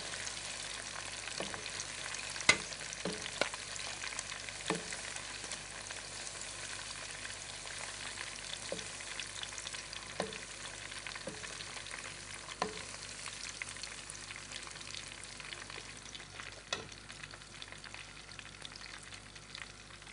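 Hot cooking oil sizzling steadily in a pot, growing a little quieter toward the end, with a few sharp clicks, the loudest about two and a half seconds in.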